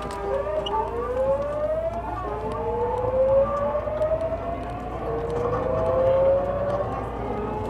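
Tokyu 9000 series electric train's GTO VVVF inverter and traction motors whining as the train pulls away and accelerates, heard from inside the car. Several tones climb in overlapping steps, with a low steady running rumble beneath.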